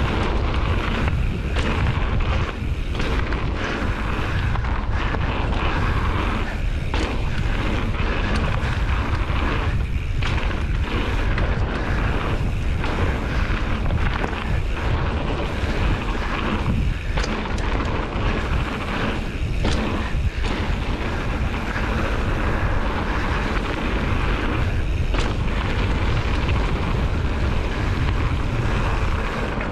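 Wind rushing over the microphone and a mountain bike's tyres rolling fast on a dirt trail: a steady low rumble and hiss, with scattered sharp knocks and rattles from the bike over bumps.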